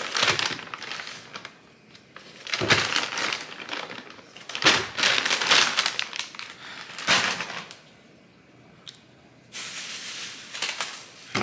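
Plastic produce bag of pears crinkling and rustling as it is handled. The sound comes in several bursts of a second or two with quieter gaps between them, and there is a steadier rustle for about a second and a half near the end.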